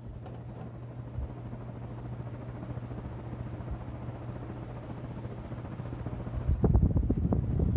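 Restored 1940 Hunter R-52 ceiling fan running, its oil-bath motor humming steadily under a rush of air that grows gradually louder. Near the end, gusts from the blades buffet the microphone.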